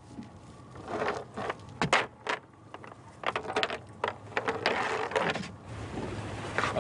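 Cast net being gathered and loaded by hand for a throw, its lead weights clicking and rattling in irregular clusters.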